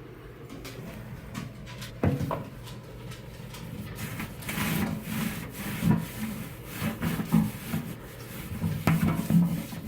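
Damp microfiber cloth scrubbing caked-on food off a microwave tray in repeated back-and-forth rubbing strokes. There is a single knock about two seconds in.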